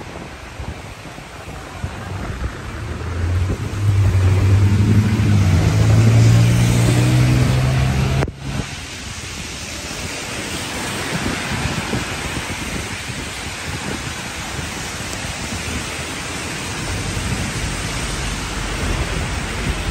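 Heavy rain and tyre hiss on a wet city street. A vehicle engine's low hum is loudest about four to eight seconds in, then cuts off suddenly.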